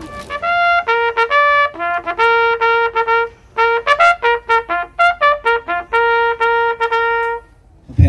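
Trumpet sounding a bugle call during a flag presentation: a run of short and held notes, with a short break about three and a half seconds in, ending on a long held note about seven and a half seconds in.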